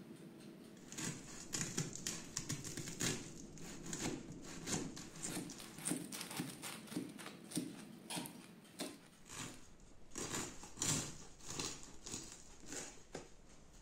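Knife sawing through the crisp baked crust of a stuffed bread loaf: an irregular run of crunches, several a second, starting about a second in.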